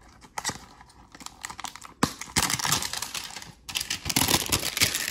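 Packaging of a trading card hanger box being torn open by hand: a few clicks and a sharp snap about two seconds in, then two long bursts of crinkling and tearing.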